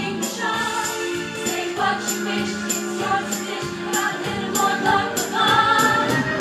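A show choir singing in harmony, holding long notes over music with a steady beat and a tambourine-like jingle.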